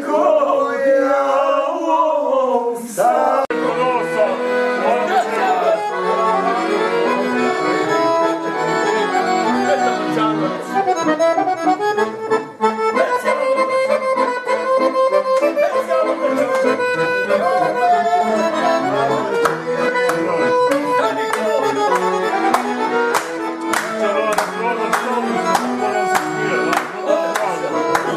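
Piano accordion playing a lively folk tune in full chords, with a man's voice singing over it for the first few seconds. Sharp hand claps join in through the second half.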